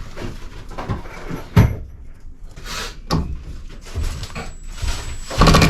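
Knocks and clattering from a wooden shed being taken apart by hand: several separate knocks, a sharp one about a second and a half in and the loudest clatter near the end.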